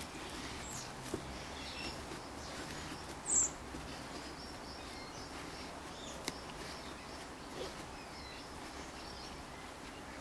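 Irish Wolfhound puppy digging in garden soil, its front paws scraping and scattering dirt, with a few sharp ticks. A bird chirps once, high and short, about three seconds in, the loudest sound here.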